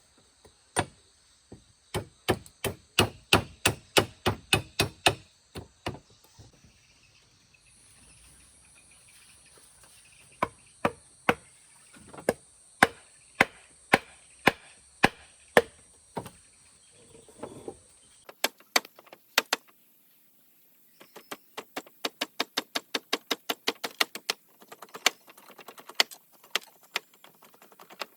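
A hand tool striking repeatedly in sharp chopping blows, two to three a second, in runs with short pauses; near the end the strikes come faster and lighter.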